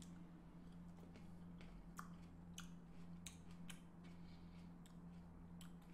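Near silence: a steady low electrical hum with a few faint, sharp clicks and smacks scattered through it.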